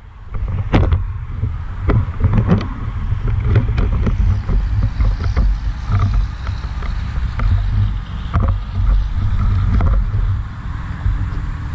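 Low rumble of wind buffeting and handling noise on a camera mounted to a metal detector's shaft, with scattered knocks and rustles as the detector is swung over grass.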